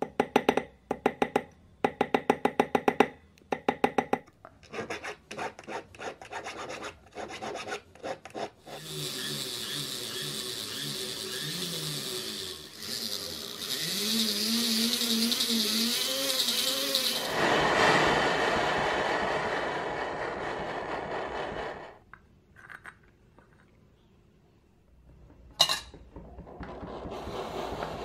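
A steel punch is struck against a silver ring on a steel ring mandrel in quick bursts of sharp taps. A file then rasps steadily against the ring for several seconds, and the rasping turns coarser. Near the end a pot of liquid starts bubbling and hissing.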